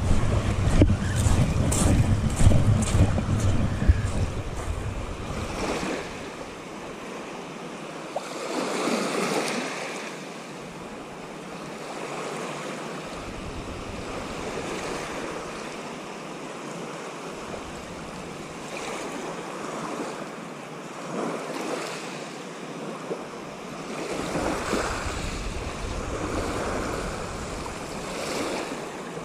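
Small waves washing in on a shingle beach, swelling and falling back every few seconds. Wind buffets the microphone for the first few seconds.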